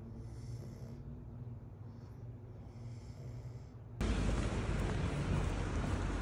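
A cat purring softly close up, rising and falling with its breaths. About four seconds in it cuts to loud outdoor street noise with wind buffeting the microphone.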